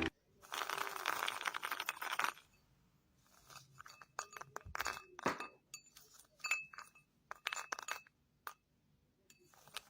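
A faint rustle, then a scattered run of light clicks and clinks, some with a brief ringing tone.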